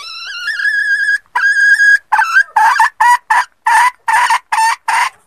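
Red junglefowl hen calling: two long, drawn-out notes, the first rising into a held tone, followed by a quick run of about nine short, repeated notes. This is the hen's call used as a hunting lure to draw in both cocks and hens.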